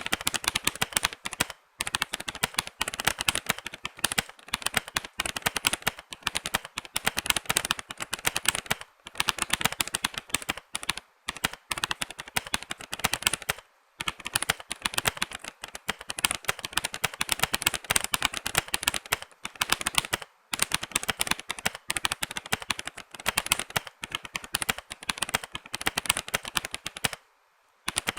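Fast typing on a Royal Kludge RK87 mechanical keyboard: a dense stream of key clicks broken by a handful of short pauses.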